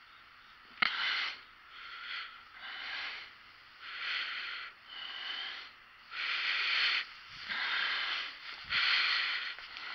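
Breathing close to a head-mounted camera's microphone: hissing breaths in and out, roughly one a second. A single sharp click comes about a second in.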